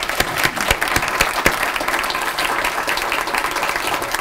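Audience applauding: many hands clapping together in a dense, even patter.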